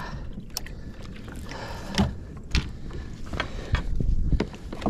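Scattered knocks and clunks of gear being handled on a plastic fishing kayak, a few single hits and then a quicker cluster near the end, over a low rumble of wind on the microphone.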